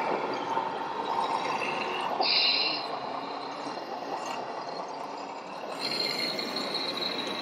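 Radio-controlled scale model trucks driving, a steady mechanical running noise over the general din of a busy hall. A short, louder high-pitched whine comes about two seconds in, and another starts about six seconds in.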